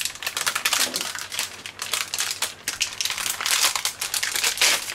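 A metallised anti-static bag crinkling and crackling as the hard drive inside is worked out of it by hand: a continuous run of sharp crackles.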